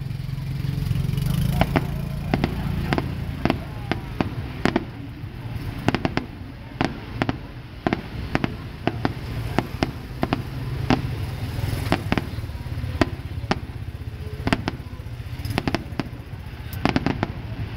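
Fireworks going off: a long run of irregular sharp bangs and pops, sometimes several in quick succession, over a steady low rumble.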